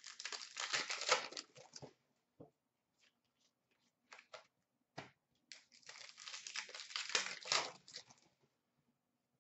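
Hockey card pack wrappers being torn open and crinkled by hand, in two bursts a few seconds apart, with a few light clicks and taps between.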